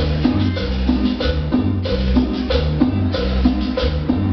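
Cumbia music played over a dance-hall sound system: a bass line stepping between notes under a steady drum and percussion beat.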